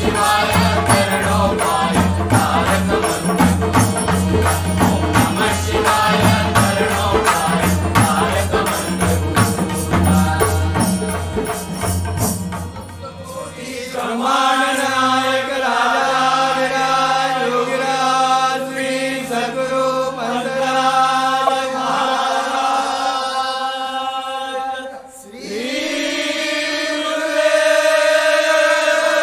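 Devotional bhajan music. For the first twelve seconds or so, rhythmic drums play under it. Then the percussion stops and long held chanted notes follow, with a short break about twenty-five seconds in.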